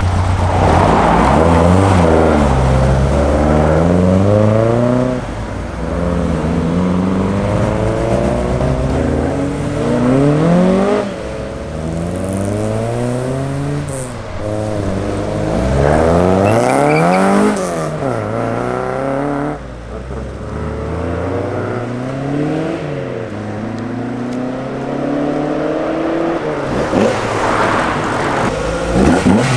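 Several classic Mk2 Ford Escorts accelerating away one after another. Their engines rev up and drop back again and again as they pull off and change gear.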